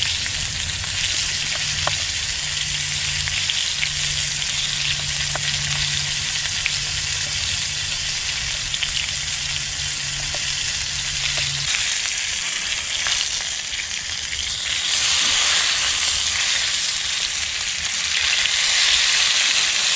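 Floured muskrat pieces frying in hot oil in a cast iron skillet: a steady sizzle with small pops. The sizzle grows louder about fifteen seconds in, as the pieces are turned with a knife.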